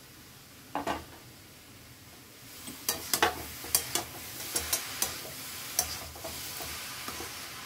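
Chopped cabbage with carrot and capsicum sizzling in oil in a metal kadai as a metal spatula stirs it, with many sharp clinks and scrapes of the spatula against the pan. There is a single knock about a second in, and the sizzle grows from about two and a half seconds in.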